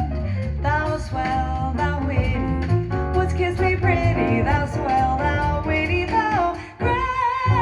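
Jazz song with a female singer and guitar accompaniment, played back through a 2A3 single-ended tube amplifier. The music dips briefly near the end, then goes into a held note.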